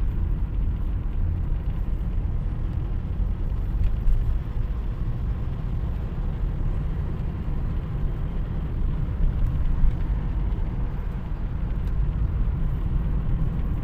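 A car's engine and road noise: a steady low rumble while driving in traffic.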